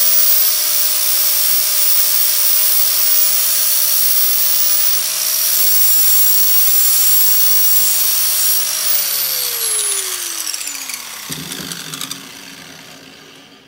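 Angle grinder with a flap disc grinding metal off the CT70 chain guard's edge to clear the Lifan stator cover, running at a steady pitch. About nine seconds in it is switched off and winds down with a falling whine that fades out.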